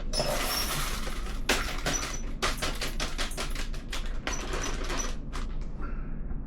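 Rice, black beans, corn and diced tomatoes tipped out of a plastic freezer bag into a rice cooker's pot: a rapid run of small clicks and rattles over a rustling hiss, thinning out and stopping about five and a half seconds in.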